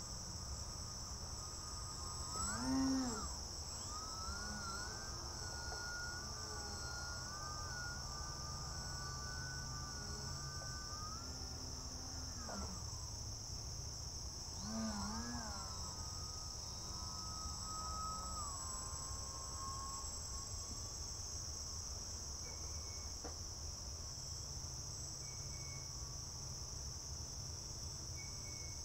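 Steady high-pitched chorus of crickets. Over it runs a pitched whine that glides up and down, swelling about three seconds in and again around fifteen seconds.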